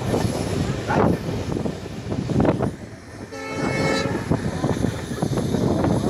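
Passenger coaches rumbling and clattering over the rails at speed, heard from a coach window, with one short blast of the WDP4 diesel locomotive's horn about three and a half seconds in.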